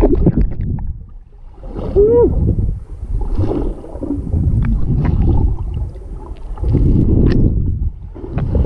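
Water rushing and bubbling around an underwater camera as swimmers kick and stroke close by, in uneven surges with a few small clicks. About two seconds in, a short pitched call rises and falls.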